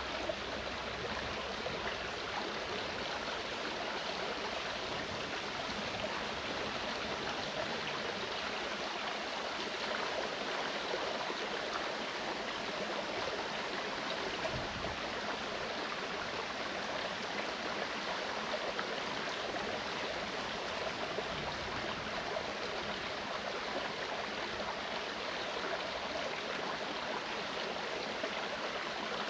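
Clear mountain stream running over rocks: a steady rushing babble of water.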